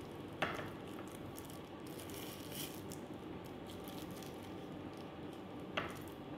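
Faint wet handling of raw fish fillets by a gloved hand in a glass baking dish, with soft squishing and crinkling. Two sharp taps stand out, about half a second in and again near the end.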